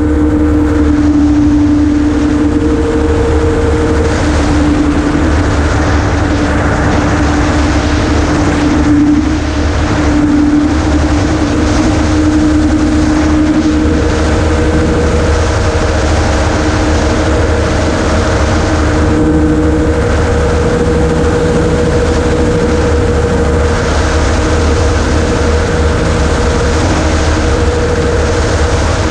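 Ultralight float gyroplane in flight: its engine and propeller drone loud and steady, holding an even pitch throughout.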